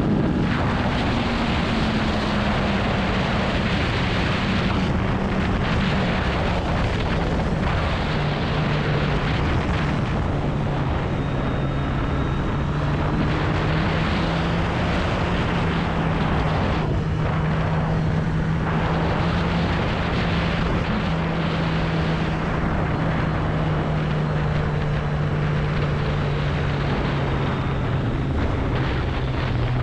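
Sport motorcycle engine running on the move, with wind and road rush over the microphone. The engine note falls over the first several seconds, then holds steady at a cruising pitch.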